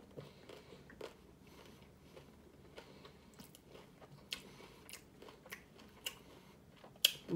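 A person chewing a mouthful of crunchy hard-shell taco: soft chewing with scattered crisp crunches of the shell, and one sharper crunch near the end.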